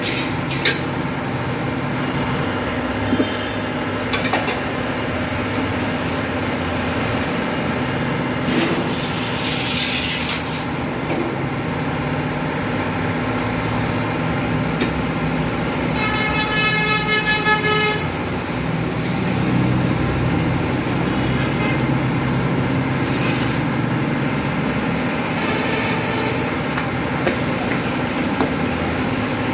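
Steady hum of running machinery and traffic, with short hissing bursts early on and a vehicle horn sounding for about two seconds near the middle.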